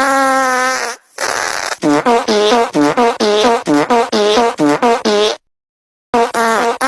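Fart sound effects: a long fart of about a second, a short airy hiss, then a rapid sputtering run of short farts at about four a second. After a brief pause come two short pops and another long fart.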